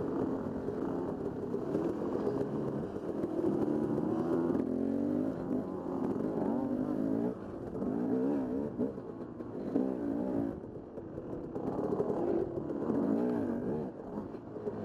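Dirt bike engine running under the rider, its note rising and falling again and again as the throttle is worked.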